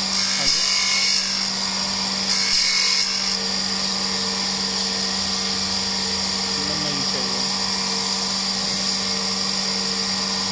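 Surface grinder running steadily, its motor and spinning grinding wheel giving a constant hum with a high whine. Twice in the first three seconds the sound swells briefly into a louder hiss.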